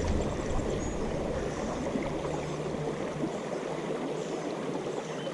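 Steady rush of a mountain trout stream's flowing water.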